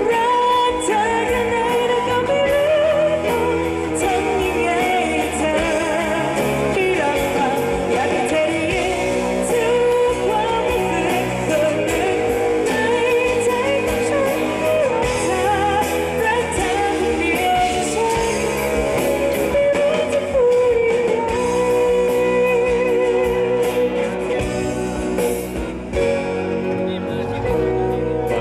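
Live pop band playing a song: a female lead singer with vibrato over acoustic and electric guitars, keyboard, drums and electric bass, amplified through the stage PA.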